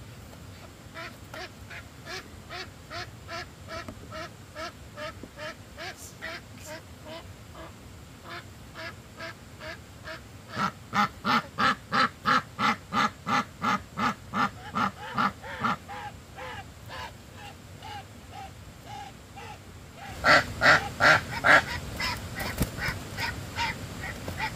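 Domestic ducks quacking in a continuous series of short calls, about three a second. The quacking grows louder about ten seconds in and is loudest in a brief run near the end.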